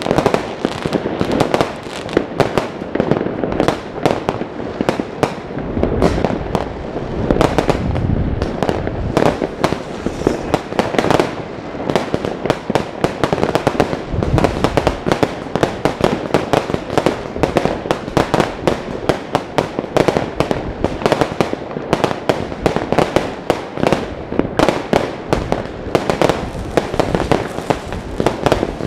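Many fireworks rockets and firecrackers going off at once all over a city, making a dense, unbroken run of overlapping bangs and crackles, several a second. It gets heavier and deeper from about six seconds in for a few seconds.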